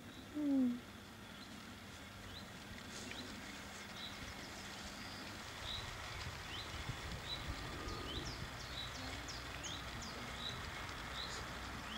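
Birds chirping over and over with short high chirps, over a low rumble that grows louder about halfway through. About half a second in, one short, loud call drops in pitch.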